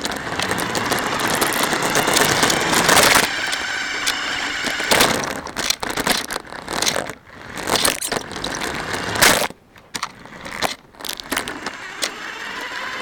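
Radio-controlled car driving, heard through a camera mounted on it: a motor whine under crackling and repeated knocks and rattles from the chassis, with short breaks where it lets off.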